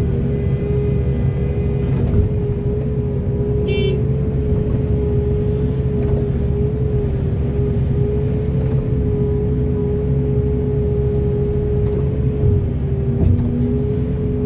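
Large hydraulic excavator's diesel engine running steadily under load with a constant high whine from the hydraulics. There is a brief high chirp about four seconds in.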